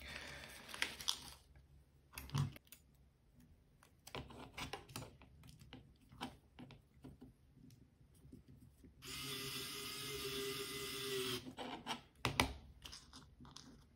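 Plastic parts bag crinkling briefly, then light clicks of small parts being handled. About nine seconds in, a pen-style electric precision screwdriver whines steadily for about two and a half seconds while driving an M2x6 steel screw, followed by a few sharp clicks.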